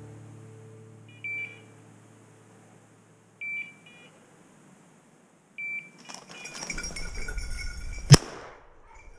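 A hunting dog's beeper collar gives a short two-tone electronic beep about every two seconds, three times, as background music fades out. Near the end comes a rustle, then a single sharp crack, the loudest sound.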